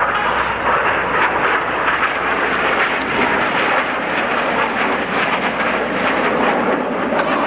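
Jet noise from BAE Systems Hawk T1 aircraft flying overhead, their Rolls-Royce Turbomeca Adour turbofan engines giving a loud, steady rushing roar.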